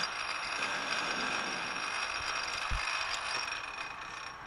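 Precision Matthews PM-1127 metal lathe running with its spindle turning, a steady gear-driven mechanical whir with a faint high whine, fading away near the end as the spindle winds down.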